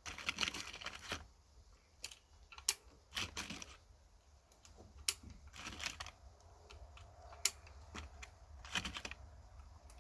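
Scattered small clicks and rustling of a single-action .22 revolver carbine being handled and readied to fire; no shots.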